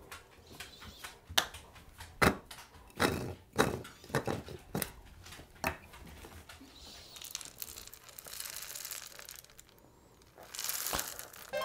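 A few knocks and clicks as a 3D-printed plastic flask is handled on a counter, then dry hamster food (seeds and pellets) pouring from its spout into a small dish with a rattling hiss, louder again near the end.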